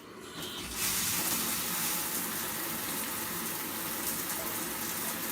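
Shower turned on: water spraying from a newly fitted shower head, building up over the first second and then running steadily.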